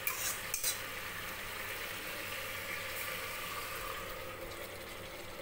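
Spiced cauliflower masala sizzling with a steady hiss in a hot pressure cooker as a little water is poured in from a bowl, with a couple of light clinks at the start.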